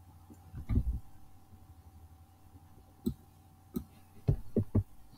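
Typing on a computer keyboard: a handful of single keystroke clicks with pauses between them, a few closer together near the end.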